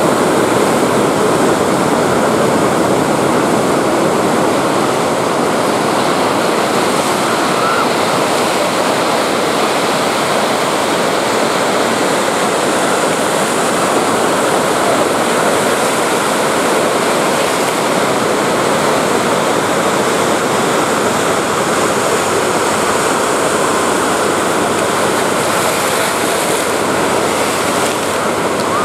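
Ocean surf breaking and washing in, heard as a steady, even rush of water noise.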